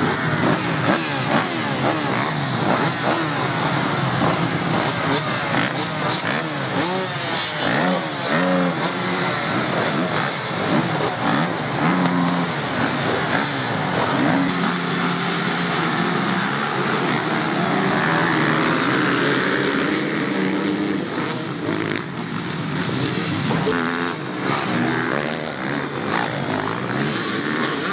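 Several motocross bikes running and revving together, their engine pitch rising and falling constantly.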